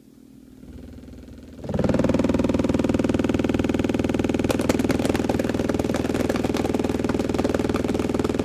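Homemade subwoofer driven by a 20 Hz bass test tone, heard as a loud, steady, buzzing rattle. Objects set on top of the driver, such as a pen, bounce and clatter on it. It starts faintly and jumps to full level about two seconds in.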